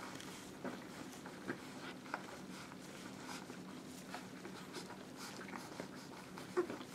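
Newborn puppies suckling at their mother, giving soft, irregular little clicks and smacks over a faint low room hum.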